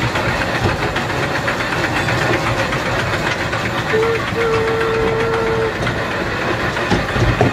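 Indoor kiddie train ride rolling along its track amid a steady din. About four seconds in, a short steady tone sounds, followed by a longer held tone of over a second.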